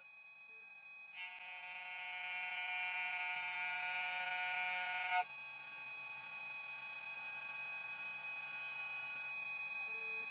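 2M2 Tank CNC key cutting machine's spindle running while its cutter mills a key blank: a steady whine of several tones that builds up over the first second or two. A short click about five seconds in, after which the whine is a little quieter.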